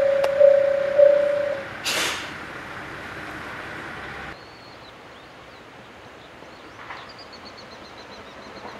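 Railway level-crossing bell ringing in a steady single tone, pulsing about every 0.6 s and stopping about a second and a half in, followed by a short hiss of air near two seconds. About four seconds in it gives way to a quieter open-air background with small birds chirping repeatedly.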